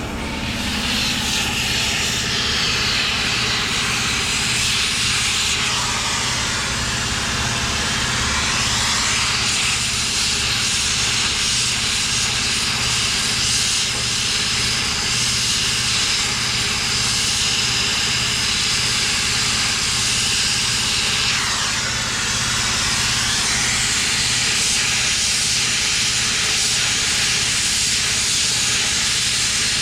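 A vehicle driving: a steady engine hum under a loud hiss of road and wind noise, which swells twice.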